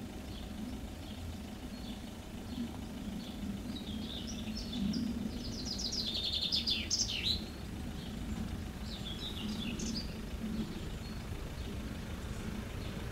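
Songbirds chirping, with a quick burst of rapid chirping trills about five to seven seconds in, over a low steady rumble.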